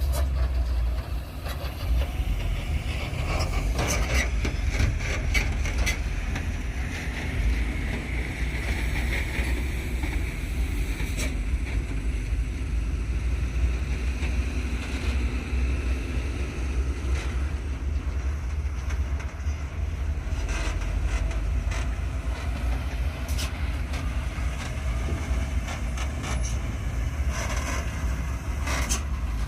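Heavy construction machinery at work: a steady low diesel engine rumble with scattered metallic clanks and knocks.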